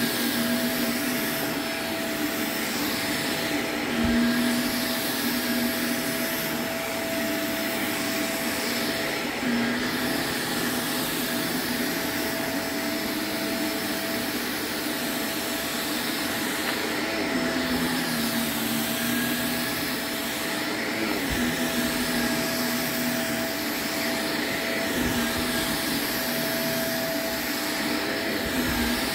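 Shark upright vacuum cleaner running steadily as it is pushed back and forth over a thick shag rug, a continuous motor whine and rushing airflow, with a lower hum that comes and goes and a few faint knocks.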